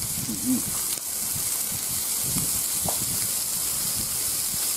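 Beef slices and shrimp sizzling on an electric indoor grill, a steady hiss.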